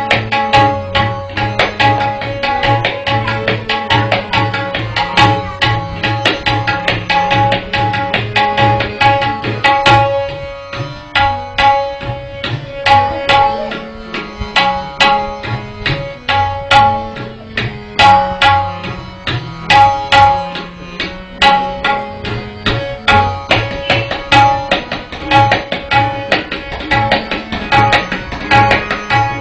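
Tabla solo in teentaal (16-beat cycle): rapid strokes on the dayan and bayan over a harmonium repeating the lehra melody. The drumming thins to spaced, louder strokes for several seconds around the middle, then fills back in with fast strokes.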